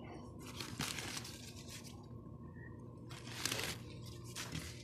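Crumpled newspaper packing and cardboard crinkling and rustling as they are handled, in several short bursts.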